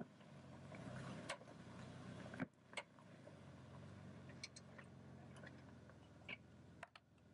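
Faint low engine hum of a 4x4 vehicle crawling at low revs, broken by abrupt cuts, with scattered light clicks and knocks.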